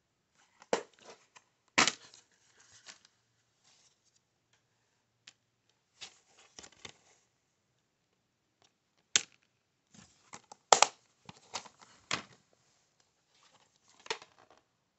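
Plastic DVD cases being handled: a series of sharp clicks and snaps from the cases opening, closing and knocking, with rustling and crinkling of plastic in between.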